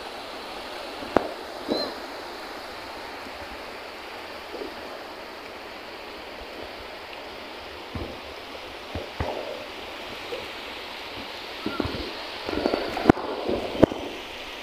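Shallow sea waves washing up on a flat sandy beach: a steady hiss of water. A few sharp knocks and bumps cut through it, most of them near the end.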